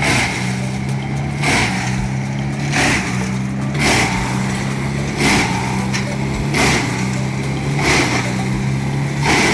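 Diesel engine running steadily under load on a Vermeer AX19 whole-tree chipper, with a sharp rasping burst about every 1.3 seconds.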